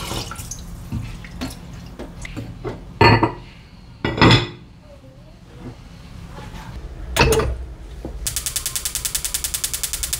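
Water trickles into a black earthenware rice pot. The pot and its ceramic lid clunk loudly about three times as it is handled and set on a gas hob. From about eight seconds in, the hob's igniter clicks rapidly, about nine clicks a second, as the burner is lit.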